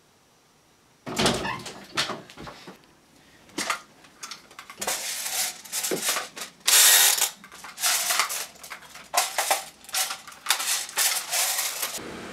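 Plastic toy blasters being handled and sorted through: a string of irregular plastic clicks, clacks and rattles. The loudest clatter comes about seven seconds in.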